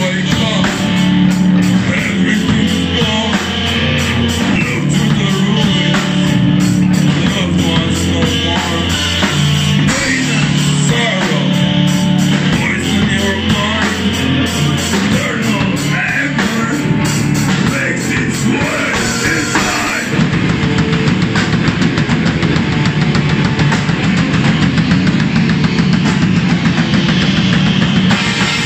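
Heavy metal band playing live: drum kit, distorted electric guitars and bass guitar. About twenty seconds in the playing changes to a denser, fast, evenly driving section.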